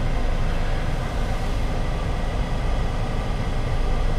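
Steady low rumble inside a car cabin as the car rolls slowly backwards in neutral, its engine idling and its tyres turning on the road.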